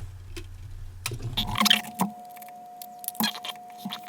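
Light clicks, taps and scratching as small parts inside an opened iPod Classic are handled and pressed into place. A low hum under them stops about a second and a half in.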